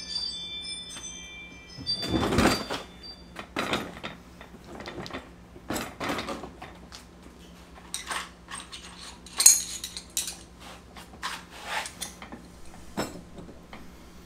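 Scattered knocks and clatter as a Gorilla Carts poly dump cart, with its plastic bed and steel frame, is handled and tipped up onto its end. A brief high ringing fades out near the start, and the sharpest knock comes about nine seconds in.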